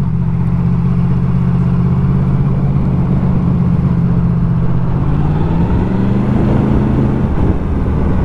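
Yamaha MT-10's crossplane inline-four engine running at low road speed. Its pitch rises slightly about five seconds in and drops back about seven seconds in.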